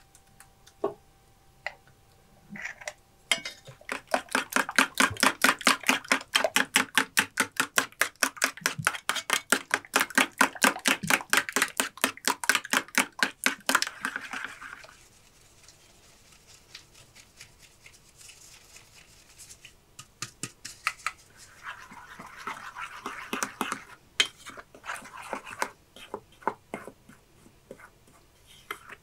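A run of quick, even knocks, about five a second for some ten seconds, stopping about halfway through; later, scattered knocks and clatter.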